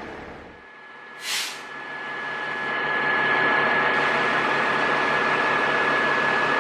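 Fire apparatus diesel engine running, with a short sharp hiss like an air-brake release about a second in. The engine then builds up over a second or so and runs loud and steady as the truck pulls away. A steady high tone sounds throughout.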